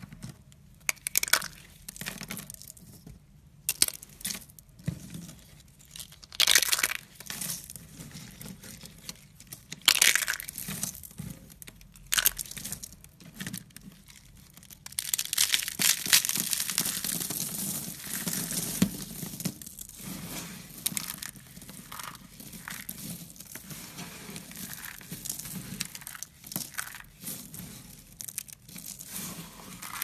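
Hands crushing a brittle, thin-layered craft rose and its leaves into small flakes: separate sharp snaps and crackles at first, then a denser stretch of continuous crunching about halfway through, followed by lighter crackling as the flakes are rubbed between the fingers.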